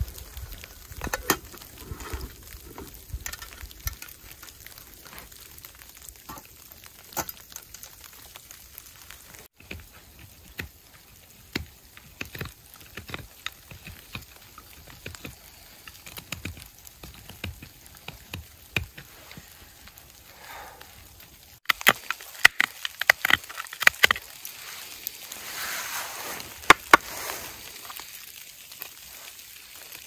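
Small twig-fired wood stove crackling, with scattered clicks and knocks from gear being handled beside it. About two-thirds of the way through, louder, dense sharp clicks and scrapes come in: a knife carving a wooden cup.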